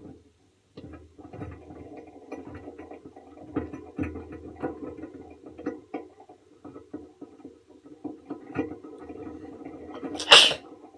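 A person's sneeze, sudden and loud, about ten seconds in, directed at a pet hamster. Before it, a stretch of many small clicks and knocks over a low steady hum.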